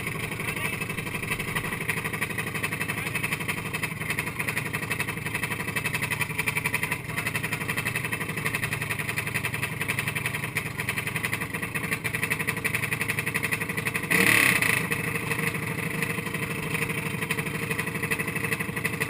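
Single-cylinder four-stroke Honda GX200-clone kart engine idling steadily, with a fast even pulse, as the kart sits stationary. About fourteen seconds in, a brief louder rush of noise lasts about a second.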